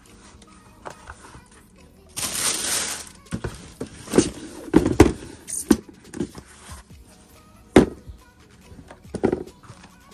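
Handling an adidas Adifom one-piece foam sneaker and its cardboard shoebox. About two seconds in there is a one-second rustle of the packing tissue, then a run of short dull knocks and taps as the shoe is set down on the box and picked up again.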